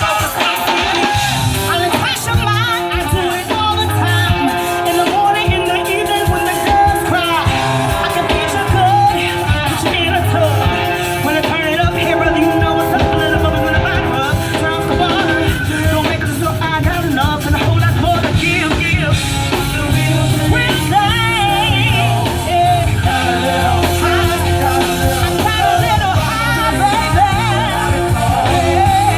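Live band playing old-school music with a lead singer, guitar and a steady bass beat.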